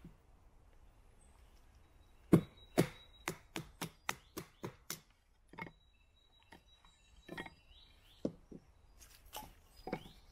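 Batoning kindling: a mallet knocking the spine of a small 9 cm-bladed Taxus Wisdom bushcraft knife through wood, a quick run of about eight sharp knocks starting about two seconds in, the first the loudest, then a few scattered knocks.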